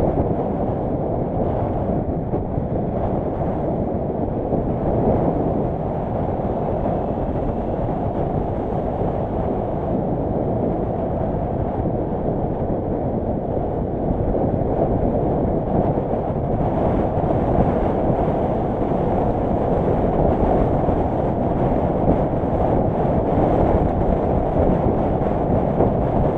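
Nilgiri Mountain Railway train running, a steady low rumble that grows slightly louder about two-thirds of the way through.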